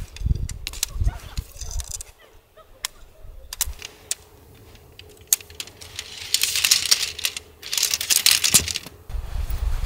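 Shelter pole sections clicking and rattling as they are handled and fitted together, with a run of sharp clicks in the first few seconds and two longer bursts of scraping rustle about six and eight seconds in. Wind buffets the microphone at the start.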